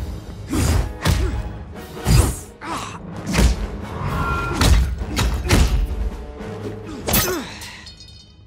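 Film fight sound effects: a rapid series of heavy blows, thuds and whooshes, about one a second, over dramatic background music, dying away near the end.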